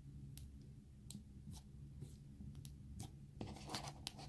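Faint squishing and clicking of soft yellow butter slime (light air-dry clay) being squeezed and kneaded between fingers, with a denser run of crackling about three and a half seconds in.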